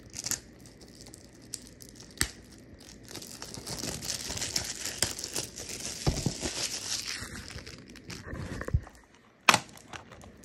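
Plastic shrink-wrap being torn and crinkled off a Blu-ray case, a long stretch of crackling in the middle with scattered clicks, then one sharp snap near the end as the plastic case is opened.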